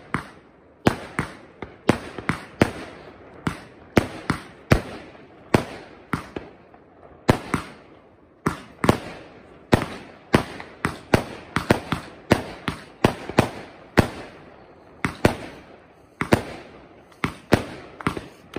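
Aerial fireworks bursting overhead in rapid succession: sharp bangs about two to three a second at an uneven pace, each trailing off in a short echo.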